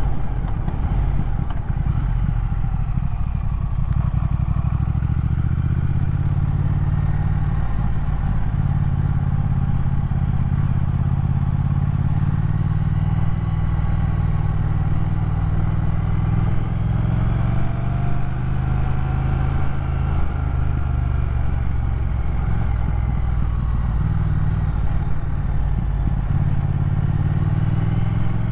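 Motorcycle engine running as the bike is ridden, a steady engine note with a few shifts in pitch and a rise near the end as it pulls away.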